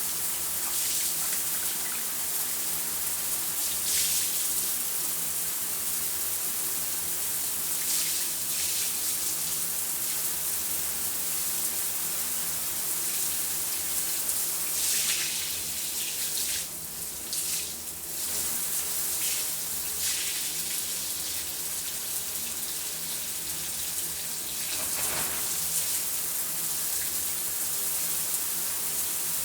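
Shower running, its water spraying in a steady hiss, with a brief change in the spray about halfway through.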